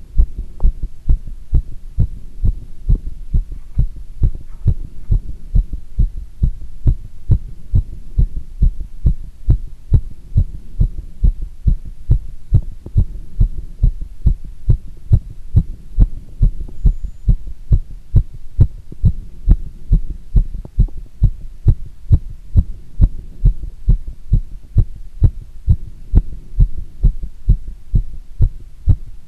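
Human heart sounds picked up at the chest: a regular lub-dub heartbeat, deep thumps repeating evenly while the person squats.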